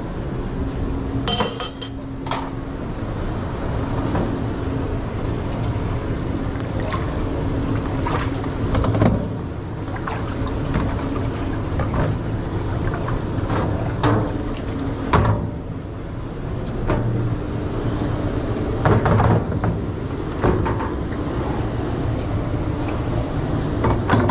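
Plates, pots and pans knocking and clinking as they are washed, with a bright clink about a second in and scattered knocks after, over a steady background rumble.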